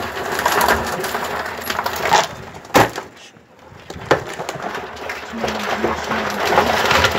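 Live crabs scrabbling in a plastic bucket, their legs and claws making a busy clatter of small clicks and scrapes against the plastic and each other, with one sharp knock about three seconds in.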